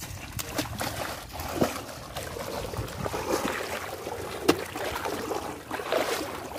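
Water sloshing and splashing as a person wades through a shallow river, with a run of small splashes and a few sharper ones.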